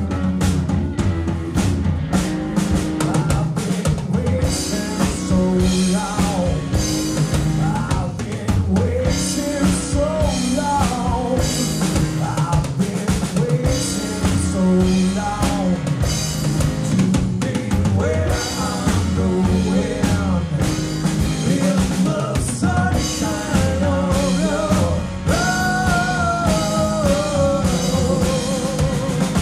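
Live rock band playing: a drum kit keeps a steady beat under electric guitar and bass guitar, with lead vocals over the top. Near the end a long note is held with a waver.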